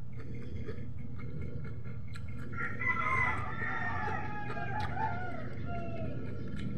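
A rooster crowing: one long, wavering call starting about two and a half seconds in and trailing off near the end, over a steady low hum.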